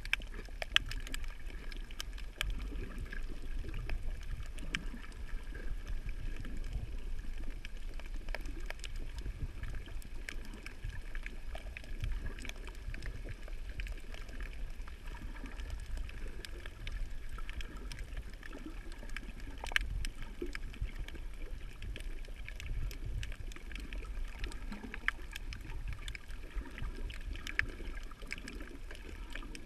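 Underwater sound over a shallow coral reef: a low rumble of water moving around the camera, with faint clicks and crackles scattered throughout.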